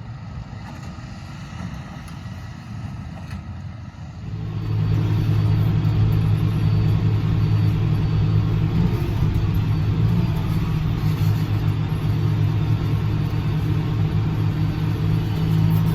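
Tractor engine running steadily, then getting much louder about four seconds in and holding a strong, steady drone.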